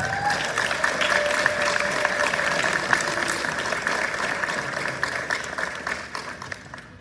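Audience applauding, with a drawn-out whoop from one person over the clapping in the first few seconds; the applause dies away near the end.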